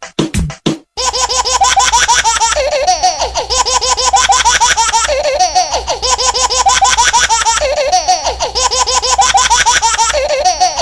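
High-pitched laughter in quick repeated syllables, starting about a second in and repeating the same pattern about every two and a half seconds, like a loop.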